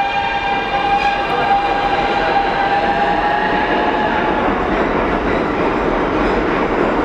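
Subway train running in the station: a high whine with overtones that sinks slightly in pitch and fades after about four seconds, giving way to a steady rumble and rail noise.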